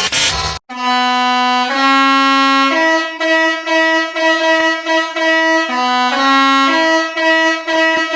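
An edited bus horn sound variation played as a short tune of long held, buzzy notes. The notes step up twice, drop back and climb again. It is preceded by a dense, harsh sound that cuts off suddenly about half a second in.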